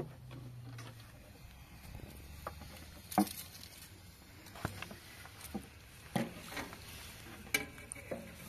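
Scattered light knocks and taps, about six short sharp ones spread over several seconds, against a faint steady background.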